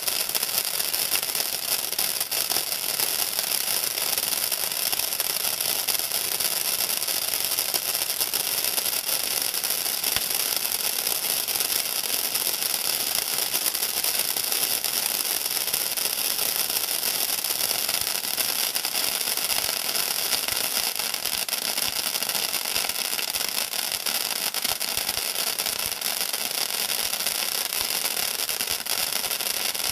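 Ground fountain firework spraying sparks: a steady, loud hissing rush that holds at one level throughout.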